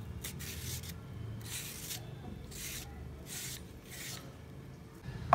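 Y-peeler scraping the skin off a raw green banana in short rasping strokes, about one a second, over a low steady hum. A sharp click near the end.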